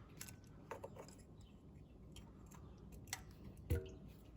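Light clicks and taps of metal parts being handled as a new thermostat is slid into the engine's thermostat housing. Two louder knocks come a little after three seconds in, the second the loudest, with a brief ring.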